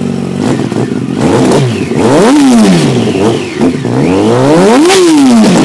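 Yamaha FZ1's inline-four engine through a Two Brothers aftermarket exhaust, revved twice from idle: each rev climbs and falls back, the second dropping back to idle near the end.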